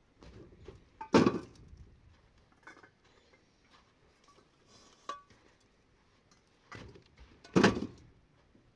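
Irregular knocks and clinks of hard objects being handled. Two louder knocks come about a second in and near the end, and a lighter clink around the middle has a brief metallic ring.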